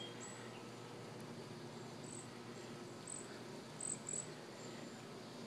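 Faint outdoor ambience with a few short, high-pitched insect chirps over a low steady hiss.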